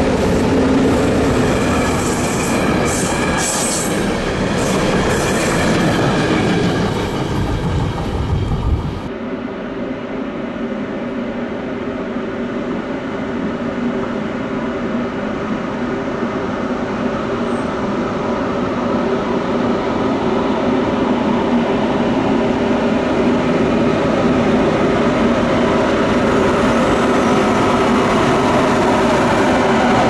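Two ÖBB Taurus electric locomotives pass close by at the head of a container freight train, with loud wheel and rail rumble and clatter. After a cut about nine seconds in, an ÖBB 1144 electric locomotive approaches with a container train. Its traction-motor blowers give a steady, many-toned hum, the sound behind the class's nickname 'Alpenstaubsauger' (alpine vacuum cleaner), and the hum grows louder toward the end.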